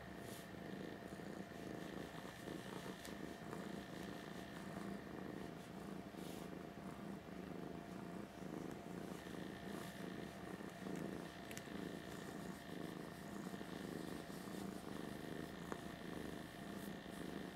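A black domestic cat purring steadily while being stroked.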